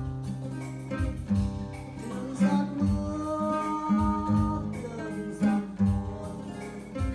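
Music: a slow song with plucked acoustic guitar accompaniment under a melody line, which holds one long wavering note in the middle.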